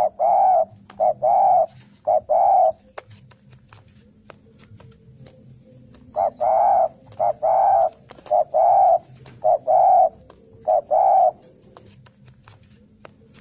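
Spotted dove cooing in two phrases, each a run of paired notes, a short note followed by a longer one. The first phrase ends about three seconds in; the second starts about six seconds in and lasts about five seconds, with faint clicks in the pause between them. This is the challenge cooing ('narung') a dove gives when looking for a rival.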